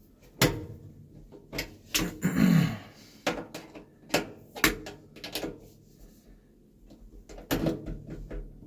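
Hand tool knocking, clicking and scraping against the garbage disposal's mounting assembly as it is worked loose. The clanks are sharp and irregular, with a louder rasping scrape about two seconds in and a quieter stretch near the end.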